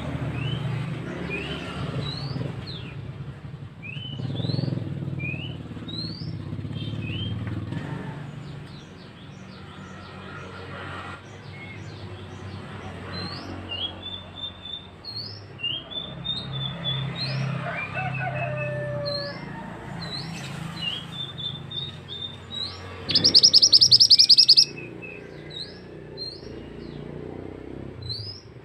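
Male 'mandi darah' (mantenan) bird calling, used as a lure song: a long series of short, sharp, rising chirps, one or two a second, over a low rumble. About 23 seconds in, a loud harsh buzzing burst lasts about a second and a half.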